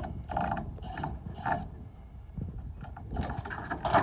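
Cordless drill backing screws out of a plywood panel in short runs: three quick bursts in the first second and a half, then a longer run near the end.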